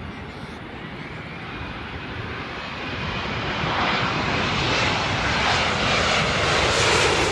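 Boeing 787 airliner on final approach with its gear down, jet engine noise building steadily louder as it comes in low overhead.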